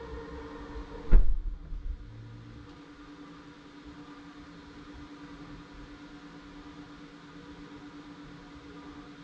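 Car wash vacuum running with a steady hum. About a second in there is one sharp, loud thump, the loudest sound here. At the same moment the higher suction tone stops, leaving only the hum.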